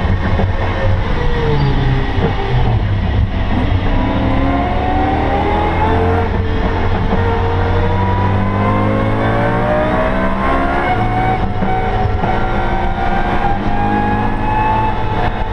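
BMW E92 M3's 4.0-litre V8 heard from inside the stripped race cabin, its pitch falling over the first few seconds and then climbing steadily as it pulls under acceleration.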